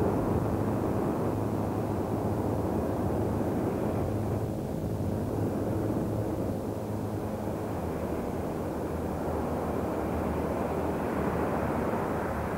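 Steady, dense rumbling drone with a low hum beneath it. It eases a little in the middle and swells again near the end.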